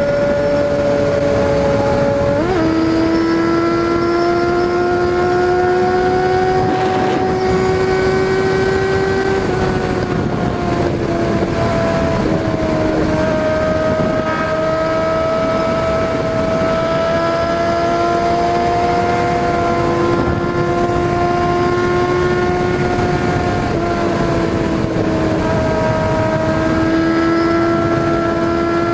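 Suzuki Bandit 650's inline-four engine running at a steady cruise under loud wind rush. The engine pitch jumps up about two seconds in and dips briefly a few times later as the throttle or gear changes.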